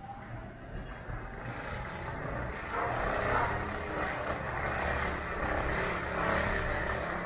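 A motor vehicle's engine droning, growing louder about three seconds in and staying loud.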